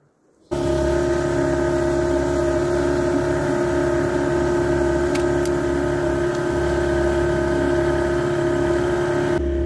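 Tiller-steered outboard motor running at a steady speed as the small boat travels over the water. It cuts in abruptly about half a second in.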